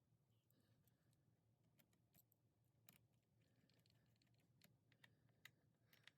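Near silence: faint room tone with scattered faint clicks, a few sharper ones about three seconds and five and a half seconds in.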